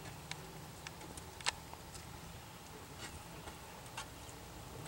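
Faint, scattered ticks and clicks, the clearest about one and a half seconds in, from gloved fingers pressing sticky Marine-Tex epoxy putty into a seam of an aluminum boat hull.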